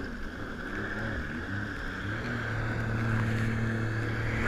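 Jet ski engine running as the craft gets under way, growing louder. Its pitch wavers at first, then settles into a steady note about two seconds in, with a rushing hiss of water and wind.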